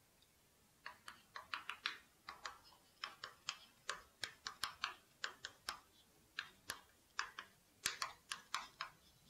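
Chalk writing on a chalkboard: a quick, irregular run of short taps and strokes as the chalk strikes and drags across the board, starting about a second in, with brief pauses between characters.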